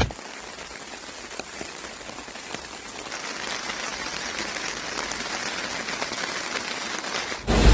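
Steady rain falling: an even hiss with scattered drop ticks, growing slightly louder as it goes on.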